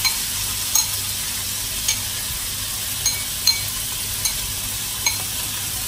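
Ground beef sizzling in hot olive oil in a frying pan, a steady hiss with scattered sharp clicks.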